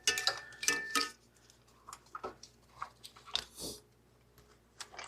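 Irregular plastic clicks and rattles as a wiring harness and its connectors are worked loose and pulled through the engine bay, busiest in the first second, which also holds a brief squeak.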